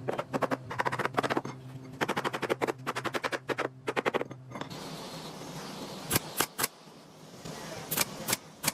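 Rapid run of sharp clicks for about four and a half seconds over a low steady hum, then sharp single cracks in twos and threes, as from woodworking tools.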